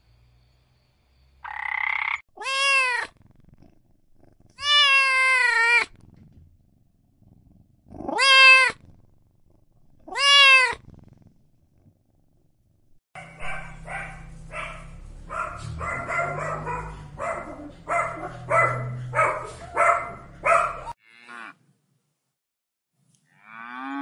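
A cat meowing four times in drawn-out calls that rise and then fall in pitch. About halfway through comes a run of quick short calls, roughly two a second, over a low hum for about eight seconds. Right at the end a cow's moo begins.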